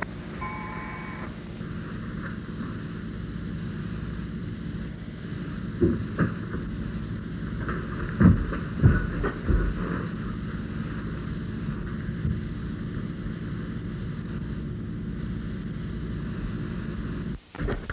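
A steady low drone, with a few thumps about six to ten seconds in.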